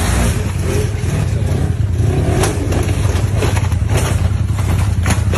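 Side-by-side UTV engine running hard at high revs under load on a steep dirt climb, with a few sharp knocks about halfway and near the end as the machine tips over.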